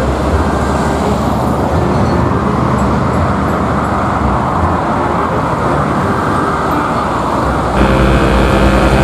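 Road traffic: vehicles passing with a steady rumble of engines and tyres. Near the end a heavy vehicle's engine hum comes in abruptly, louder and steady.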